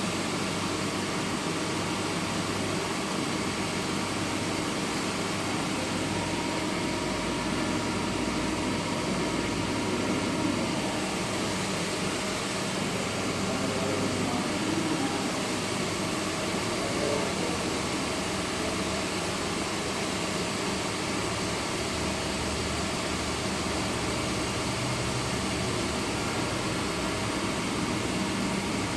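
Steady mechanical whirring hum with a constant hiss.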